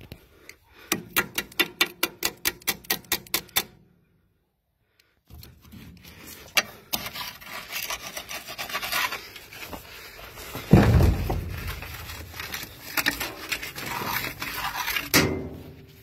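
Steel Leatherman multi-tool rapped against a hard surface in a quick run of about a dozen sharp knocks, roughly five a second. After a short pause it is scraped and knocked about, with rustling, scattered clicks and one heavy thump midway.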